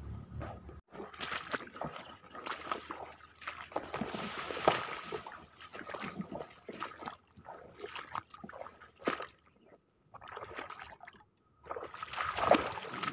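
Tall grass and brush swishing and rustling as a person pushes through on foot, in irregular bursts with a couple of short pauses near the end.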